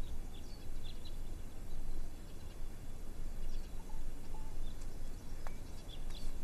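Outdoor courtyard ambience: steady background noise with a few brief, high bird chirps scattered throughout.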